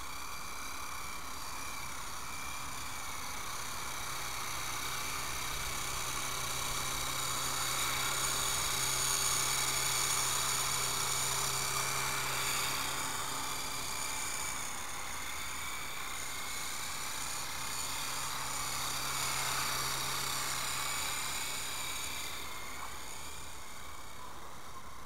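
E-flite Blade CX3 coaxial electric micro RC helicopter in flight: the whine of its motors and rotors, rising and falling in pitch with the throttle. It is loudest a little before the middle.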